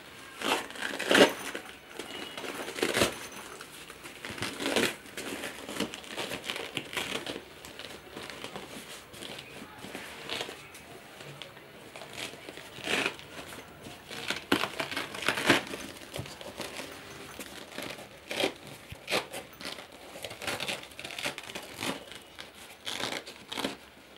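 Nylon fabric and foam-padded dividers of a camera backpack rustling, crinkling and scraping as they are handled and pulled, in irregular strokes, some louder than others.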